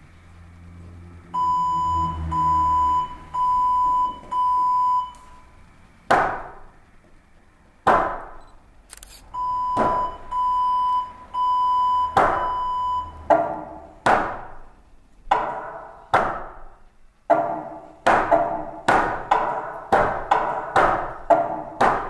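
Two runs of four evenly spaced electronic beeps, then sharp percussive knocks, each ringing out briefly. The knocks start a couple of seconds apart and speed up into a quick, regular beat near the end.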